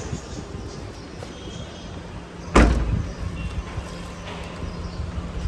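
A car trunk lid on a Toyota Corolla slammed shut once, a sharp, deep thump about two and a half seconds in, over a steady low hum of street noise.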